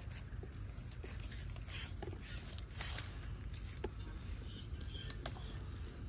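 Footsteps on a forest trail: scattered light crackles and scuffs, with a sharp click about three seconds in and another near the end, over a low steady rumble.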